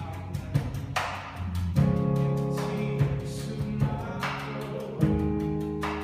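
A small rock band playing: electric guitars and bass holding chords that change every second or two, drum and cymbal hits about once a second, and a male voice singing.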